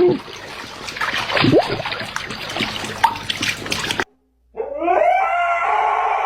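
A dog howling: one long drawn-out howl that begins about four and a half seconds in, after a few seconds of noisy clatter and a short cut to silence.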